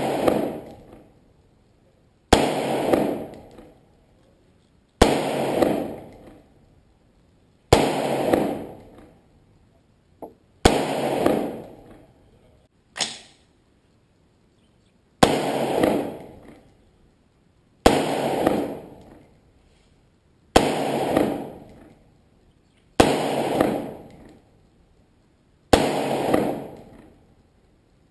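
AR-15 rifle firing single shots about every two and a half seconds, around ten in all, each followed by an echo that dies away over a second or so. Two of the shots are shorter and fainter.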